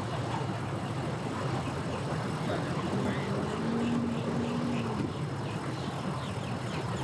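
Engines of boats and tow vehicles running at a boat ramp: a steady low rumble, with a held hum joining in for about two seconds in the middle.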